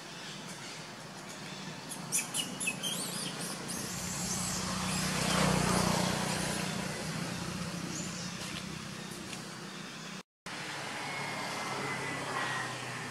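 A motor vehicle passing, its engine and tyre noise swelling to a peak about halfway through and then fading. A few short high chirps come around two seconds in.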